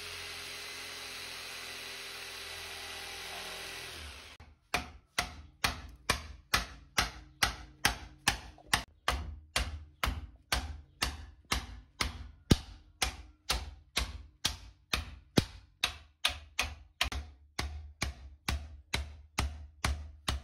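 Electric jigsaw running steadily, cutting the cleaver's handle, then stopping about four seconds in. After that comes a steady series of sharp, evenly spaced taps, about two a second.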